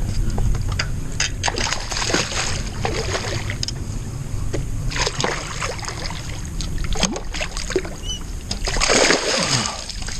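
A hooked bass splashing at the surface as it is fought to the boat, with many short splashes and one bigger splash about nine seconds in, over a steady low rumble.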